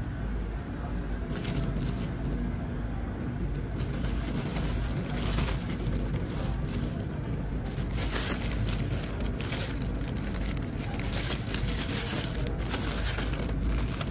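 Plastic and mesh bags of small potatoes crinkling and rustling as a hand handles them in a shopping cart, over a steady low rumble.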